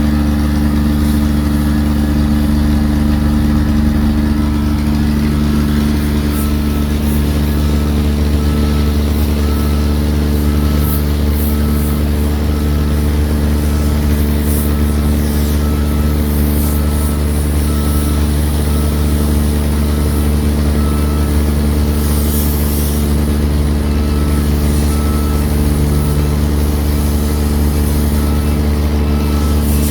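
Heavy diesel engine of an excavator running steadily, with a faint alarm beeping in an even series of short beeps through most of it, pausing briefly about two-thirds of the way in.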